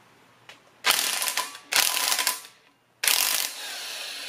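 Bauer corded half-inch impact wrench hammering on a Honda K24A's camshaft gear bolt to break it loose, in three bursts of about a second each; the last trails off as it winds down.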